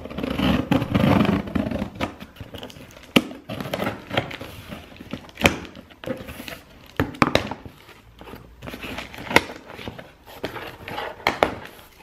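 Scissors slicing through packing tape on a cardboard box, a dense scraping rip at the start. Then scattered sharp knocks and rustling as the cardboard flaps are pulled open.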